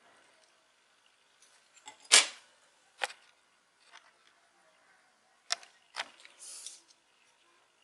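Clicks and taps from the white plastic shell of a Sony SBH50 Bluetooth headset being handled in the fingers: a few separate sharp clicks, the loudest about two seconds in, and a short scraping rub near the end.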